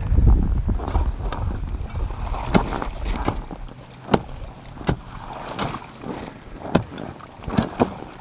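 Water and ice slush stirring in an ice-fishing hole, with scattered sharp clicks and knocks of ice throughout and a low rumble that fades after about three and a half seconds.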